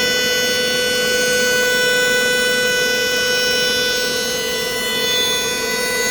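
Welding arc buzzing steadily: a constant high-pitched hum over an even hiss, unchanging in pitch and level.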